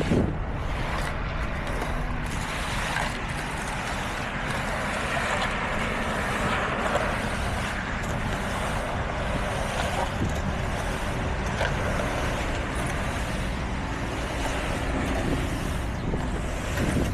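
Heavy construction machinery engines running steadily: a constant low drone under an even wash of mechanical noise.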